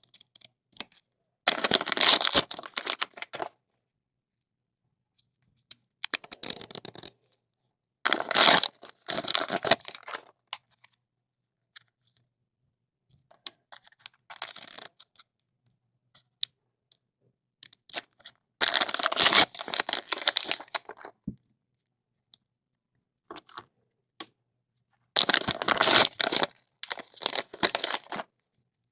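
Small plastic toy wrappers being torn and crinkled open by hand, in about six bursts of a second or three each, with pauses between them.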